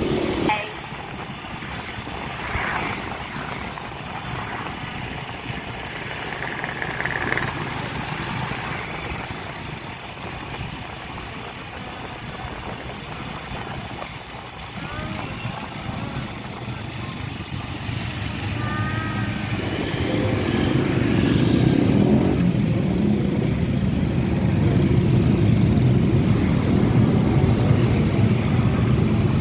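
Road traffic noise heard while riding along with it: motorcycle and car engines with road and wind noise. It grows louder about two-thirds of the way in as the traffic becomes dense around the vehicle.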